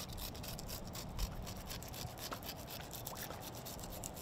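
Fillet knife cutting along the skin of a mahi-mahi to outline the fillet, a dense run of small scratchy clicks as the blade works through the skin.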